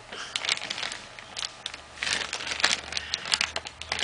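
Plastic toy packaging crinkling and crackling as hands grip and pull at it, trying to open it. The crackles are irregular and come thicker from about halfway through.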